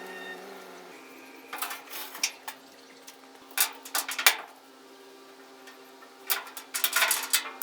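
A motor running steadily, with three clusters of sharp metallic clanks and rattles: the first about a second and a half in, the second about three and a half seconds in, the third near the end.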